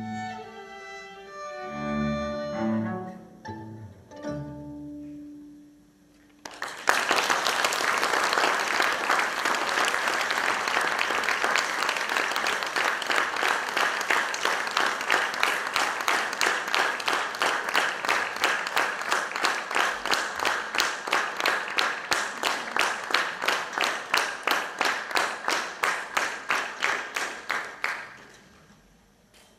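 String quartet ending a piece: a few last low notes, then one held note that fades away. About six seconds in, audience applause breaks out and settles into rhythmic clapping in unison at about two to three claps a second, which stops abruptly near the end.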